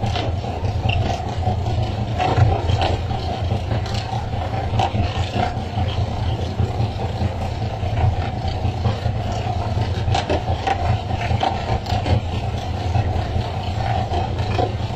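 Fishing boat's engine running steadily, with water rushing and many scattered knocks and slaps of skipjack tuna being swung aboard onto the deck.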